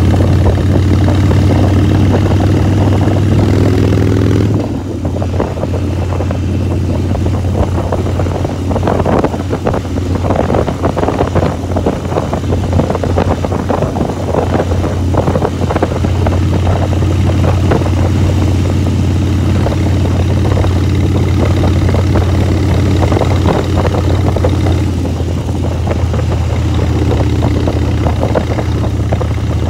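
Motorcycle engine running steadily while riding at road speed, with wind rushing over the phone's microphone. The engine note drops back about four seconds in.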